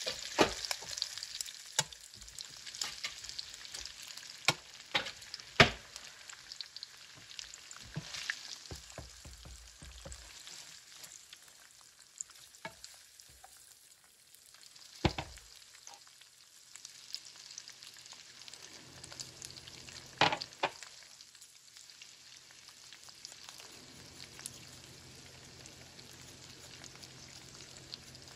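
Food sizzling in a frying pan, with sharp clicks and knocks of a utensil against the pan, the loudest in the first six seconds and at about 15 and 20 seconds in. The sizzle dies down in the second half, where a low steady hum comes in.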